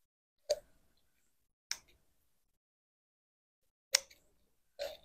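Kitchen shears cutting along the backbone of a whole raw chicken: four sharp snips, with a long pause between the second and the third.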